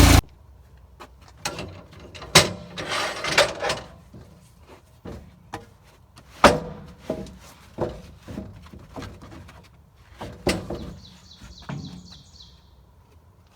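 A portable sawmill's gas engine shuts off abruptly, then scattered wooden knocks and clatter of sawn pine boards being handled and stacked. Late on, a bird chirps a quick run of short high notes.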